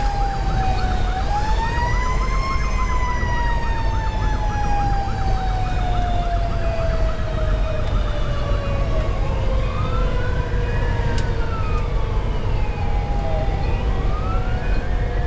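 Fire engine sirens heard from inside the cab: a mechanical siren slowly winding down in pitch, while an electronic siren runs a fast yelp for the first several seconds and then two slow rising-and-falling wail sweeps. Steady diesel engine and road rumble sit underneath.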